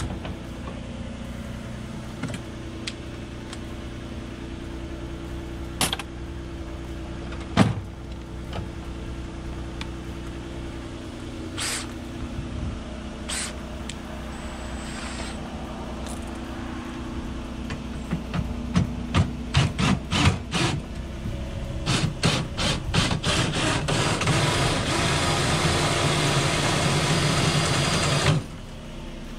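Knocks and metal clanks of a trailer being hooked up to a pickup and its tongue toolbox worked, over a steady low hum. A run of quick rattling clicks comes past the middle, then a louder rushing noise that stops abruptly near the end.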